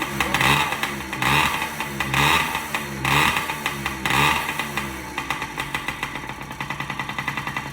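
Yamaha PW50's single-cylinder two-stroke engine running, its revs blipped up and back down about once a second five times, then settling to a steady idle. It runs again now that a new crankshaft seal has replaced a worn one.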